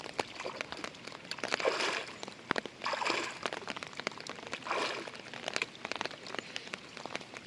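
Water splashing and sloshing in three bursts, with scattered sharp clicks between them.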